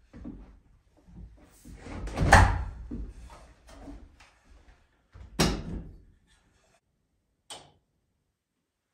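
A wooden-framed exterior door is shut with a loud thud about two seconds in, among boot steps and handling noise on a plywood floor. A second thud follows about three seconds later, and a short light knock comes near the end as a portable power station is set down on a table.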